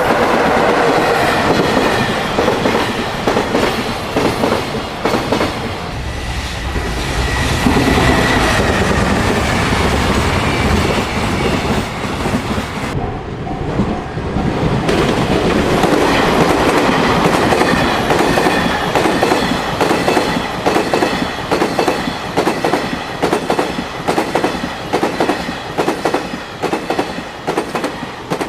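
Container freight train passing at speed: a continuous loud rumble of wagons with a rapid, regular clickety-clack of wheels over the rail joints, about two to three clicks a second in the second half.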